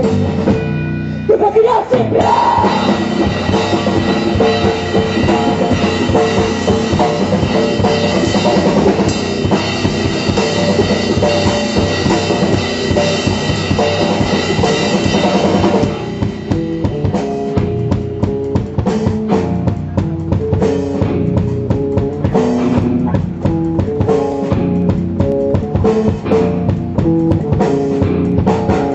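Live rock band playing: drum kit, electric bass and electric guitar. After a short break the full band comes in loud about two seconds in, then about halfway through it thins to a sparser groove of separate drum hits and bass notes.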